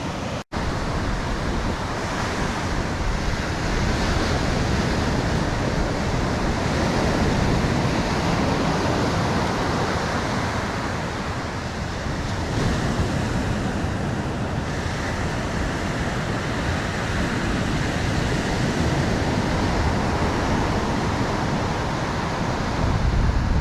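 Steady rushing of surf breaking on the beach, with wind rumbling on the microphone. The sound drops out for a moment about half a second in.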